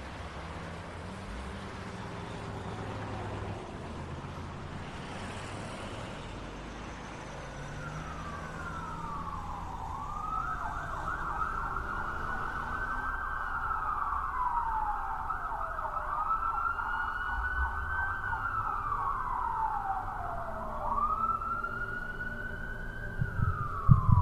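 A wailing siren sweeping slowly up and down in pitch, starting about a third of the way in and cycling every few seconds. Low thumps begin near the end.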